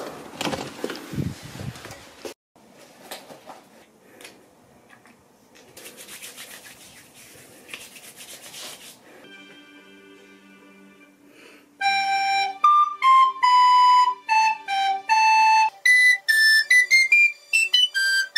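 A few knocks and rustling at first. About nine seconds in, a played-back accompaniment starts with steady chords, and about three seconds later a recorder comes in over it, playing a melody in clear single notes that quicken into a rising run near the end.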